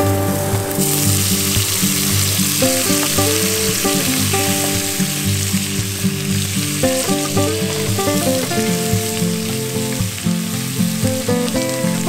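Cubes of raw beef sizzling in hot oil in a pot as they are searing to brown, stirred with a wooden spatula; the sizzle jumps up about a second in as the meat goes in. Melodic background music plays under it.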